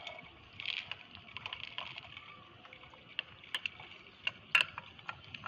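Crushed jaggery sliding out of a bowl and falling into a jug of water, a soft patter and splash, followed by a few sharp taps as the bowl is knocked to shake out the rest.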